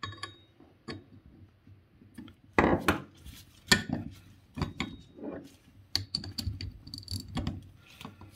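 A flat steel holding tool being handled and fitted onto the steel clutch hub of a Denso air-conditioning compressor: scattered metal clinks, clicks and knocks, the loudest a little under three and four seconds in.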